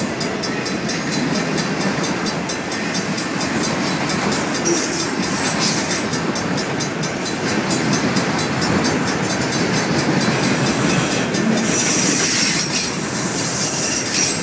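Enclosed multilevel autorack freight cars rolling past close by: a steady rumble and rattle of wheels on rail, with fine rhythmic clicking. The high-pitched noise grows louder for a stretch about five seconds in and again near the end.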